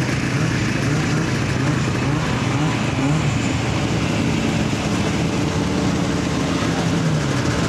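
Snowmobile engines running, a steady low drone whose pitch wavers and rises slightly a few times, over a constant rushing noise.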